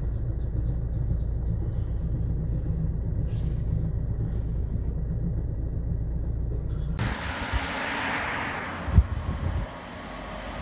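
Steady low rumble of a running tram. About seven seconds in it gives way abruptly to a hissing noise that fades, with a couple of low thumps.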